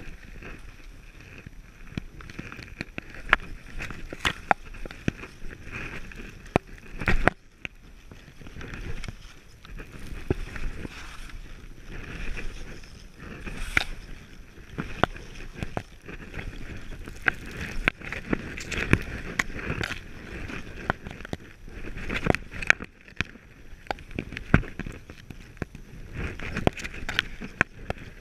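Skis sliding and turning through soft snow, a continuous hiss that swells and fades with the turns, broken by frequent sharp clicks and knocks.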